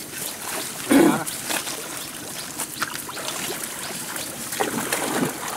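Water splashing and trickling as a seine net is hauled and bunched up by hand in shallow pond water, with a short call from one of the men about a second in.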